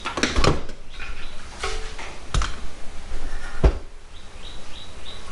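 Sharp knocks and clicks of parts being handled, four or five of them spread over a few seconds. Near the end a bird chirps in short falling notes in the background.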